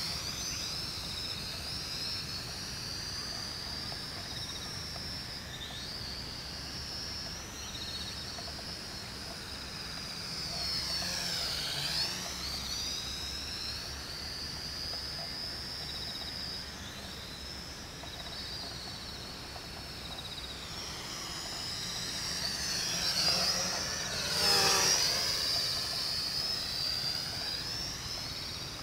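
MJX X400 toy quadcopter's propellers and motors whining at a high pitch as it flies at a distance. Twice the whine drops sharply in pitch and climbs back, about twelve seconds in and again near the end; the second time is the loudest.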